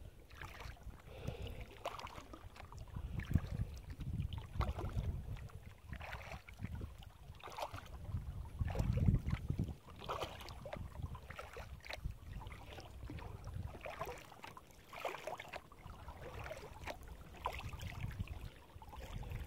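Kayak paddle strokes dipping and splashing in calm lake water, roughly one a second, over a low, uneven rumble.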